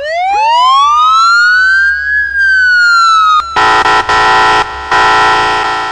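Police car siren wailing: one long sweep that rises and then falls. About three and a half seconds in, it gives way to a harsher, steady blaring tone in a few blasts with short breaks.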